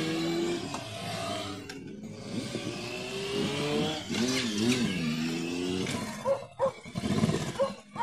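Motorcycles riding past one after another, their engines rising in pitch as they accelerate through the roundabout. A dog barks twice about six seconds in.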